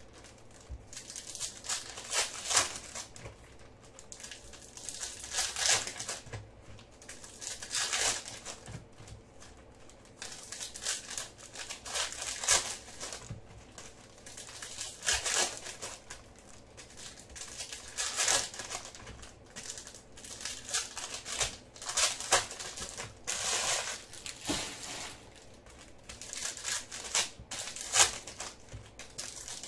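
Foil wrappers of Select basketball card packs crinkling and tearing as they are handled and ripped open, a burst of crinkling every two to three seconds.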